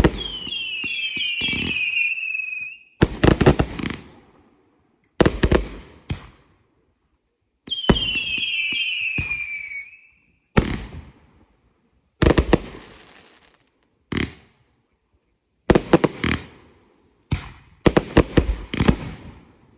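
Consumer fireworks going off: two warbling, falling whistles of a few seconds each, and loud sharp bangs with echoing tails between them, coming thicker near the end.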